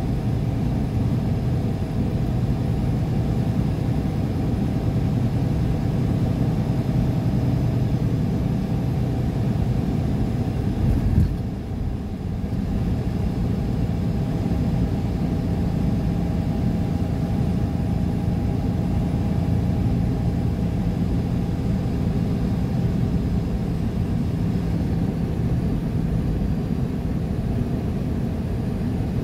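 A car driving at a steady speed, heard from inside: steady road and engine noise with a low engine hum. About eleven seconds in there is a brief thump, after which the hum settles at a higher pitch.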